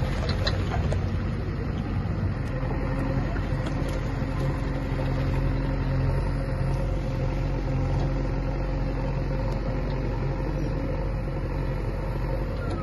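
Diesel engine of a JCB 3DX backhoe loader running steadily under load as its backhoe arm digs and lifts soil.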